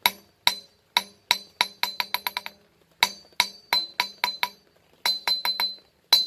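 Hammer bouncing on the face of an old mouse hole pattern anvil in a rebound test: runs of sharp ringing taps, each run quickening as the hammer settles. The lively bounce shows good rebound, better than on a Peter Wright anvil.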